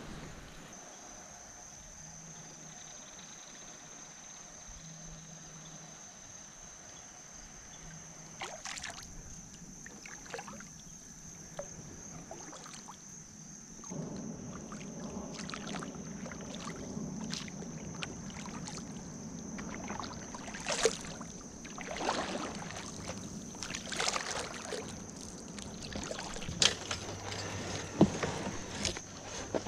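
Kayak being paddled: paddle strokes and splashing water, with sharp knocks of paddle or gear against the hull. It grows louder about halfway through.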